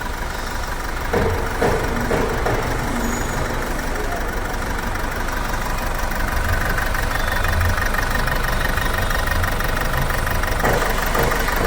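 Four-cylinder diesel car engine idling with a knock and a misfire ("missing"), which the scanner puts down to a faulty cylinder 4 injector.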